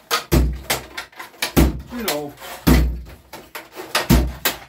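Drawers and tool boxes being opened, shut and rummaged through during a search for Allen keys: four heavy thuds about a second apart among lighter clicks and rattles.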